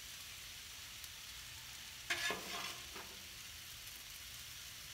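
Burgers and mayonnaise-coated buns sizzling steadily on a Blackstone flat-top griddle, with a brief scrape of the metal spatula on the steel top about two seconds in.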